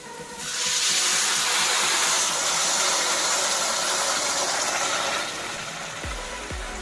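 A loud, steady hiss that starts just after the beginning and stops about five seconds in, over background music; a beat with deep thumps comes in near the end.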